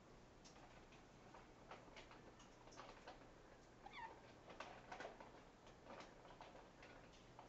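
Blue-fronted Amazon parrot preening: faint, scattered clicks and rustles of its beak working through its feathers, with one short, soft squeak falling in pitch about four seconds in.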